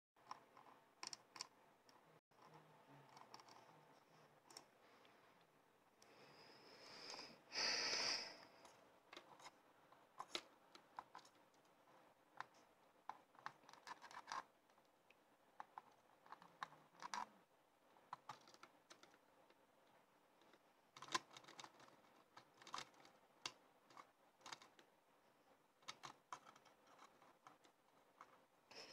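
A budgie's beak pecking and chewing at a plastic Logitech computer mouse: irregular light clicks and taps, with a brief louder sound about eight seconds in.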